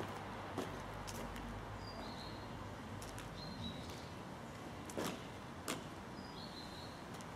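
A small bird chirping, a short high note that steps down in pitch, heard three times over a steady low background rumble, with a few sharp ticks in between.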